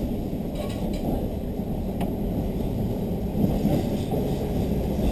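Steady low rumble of a diesel local train running, heard from inside the passenger cabin: engine and wheels on the rails, with a few light clicks.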